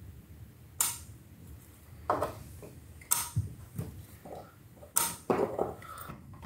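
Handling noise: a few sharp knocks and clicks, some with a short metallic ring, as a hand works among the wires inside the open metal case of a homemade switching power supply.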